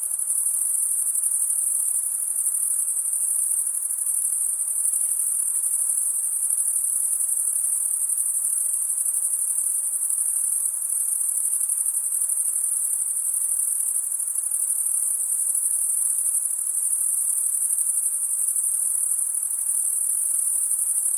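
A dense night chorus of crickets chirping steadily, a continuous high-pitched trill with no pauses.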